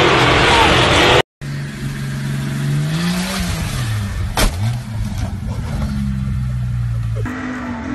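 Off-road SUV engine (a Jeep Cherokee XJ) under load on a steep dirt climb: the revs rise, then sag sharply, and a single sharp crack comes about four and a half seconds in. After that the engine runs on steadily. A loud second of engine and crowd noise and a brief silent gap come first.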